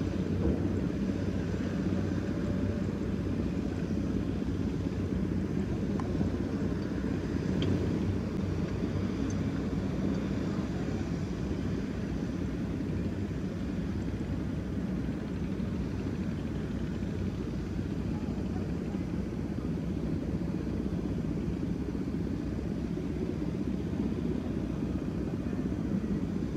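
Diesel engines of heavy construction machinery (excavators and crawler cranes) running steadily, a continuous low rumble with a faint engine hum and no breaks.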